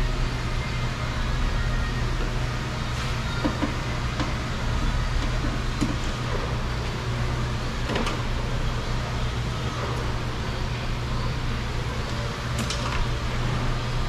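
Steady low mechanical hum of workshop equipment, with a few sharp clicks of plastic door connectors and clips being handled, the clearest about eight seconds in and another near thirteen seconds.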